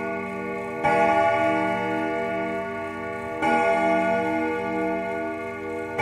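A single church bell tolling slowly, struck about every two and a half seconds: about a second in, again about three and a half seconds in, and once more at the very end. Each stroke rings on over the last with a slow, pulsing hum.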